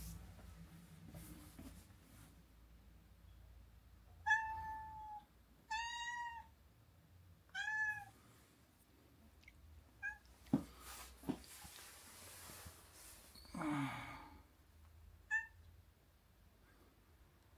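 Domestic cat meowing, with three drawn-out meows in a row about four seconds in and then a couple of short, clipped meows. Two sharp knocks and a brief rustling sound come in between.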